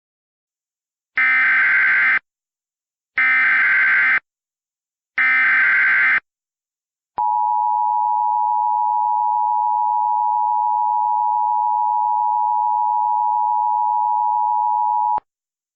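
Emergency Alert System header: three one-second bursts of digital SAME data about two seconds apart, then the two-tone EAS attention signal held steadily for about eight seconds, cutting off sharply. Together they mark the start of an emergency alert broadcast.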